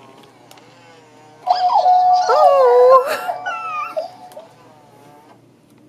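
Little Live Pets Rainglow Unicorn plush toy playing its electronic animal sound effects. About a second and a half in comes a loud burst of held and sliding electronic tones lasting about a second and a half, followed by a few fainter sliding calls.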